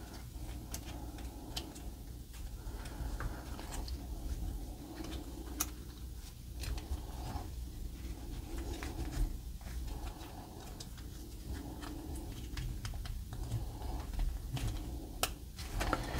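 Small plastic parts of a Magic Square MS-B54 Tornado transforming robot figure being handled and pressed together: scattered light clicks and taps at irregular intervals as pegs are worked into their holes, over a low steady hum.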